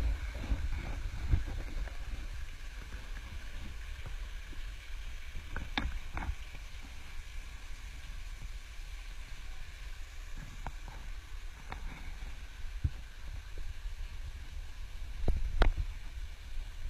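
Handling noise on a handheld camera microphone: a steady low rumble with a few short knocks as the camera is moved about at the edge of a swimming pool.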